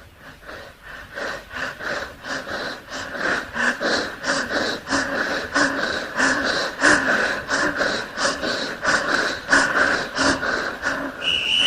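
Rhythmic breathy puffs, several a second, like panting set to a beat, growing louder over a steady synth tone. Near the end a high electronic tone comes in and starts to sweep down.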